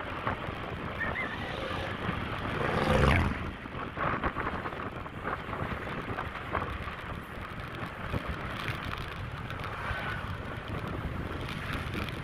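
Wind rushing over the microphone with road noise from a moving ride, swelling louder about three seconds in.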